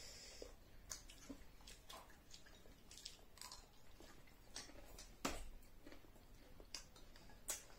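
Faint chewing of chatpate, a crunchy spiced puffed-rice snack, with scattered light clicks of spoons on bowls. One louder click comes about five seconds in.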